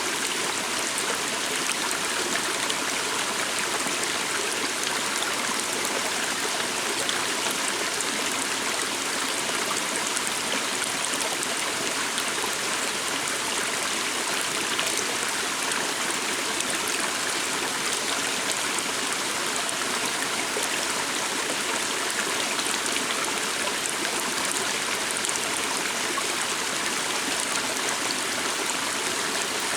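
Water stream flowing steadily over stones, an even rushing and trickling.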